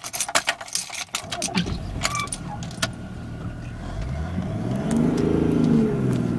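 BMW car engine running, heard from inside the cabin, revving up from about four seconds in and dropping back near the end. Sharp clicks and rattles in the first two seconds.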